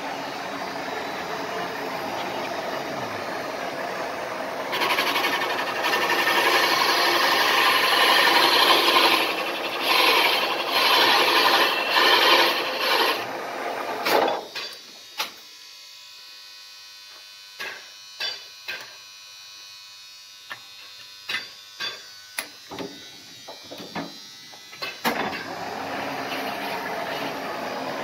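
Jig boring machine running and boring a ZIL truck brake drum's hub, metal cutting metal; the cutting grows louder and harsher from about five seconds in to about thirteen seconds. About fourteen seconds in the machine noise drops away, leaving a string of sharp metallic clicks and knocks, and near the end the machine noise returns.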